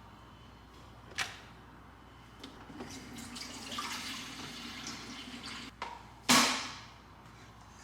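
Water running, as from a tap into a container, for about three seconds, then a sharp knock or clatter that is the loudest sound.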